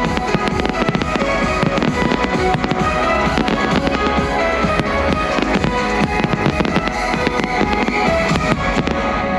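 Fireworks display: aerial shells banging and crackling in quick succession over a loud music soundtrack.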